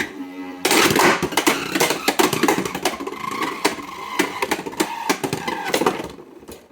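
A Samurai Saber Beyblade X top is released from a 3D-printed planetary-gear launcher about half a second in, then spins and clatters around the stadium with a faint whine that slowly falls in pitch, dying down near the end. The higher that pitch, the faster the top is spinning.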